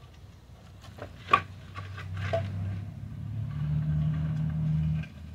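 Old wooden boards knock sharply against a concrete floor as they are handled, one loud clack followed by a lighter one. Under them an engine runs with a low steady hum, its pitch stepping up a little past the middle.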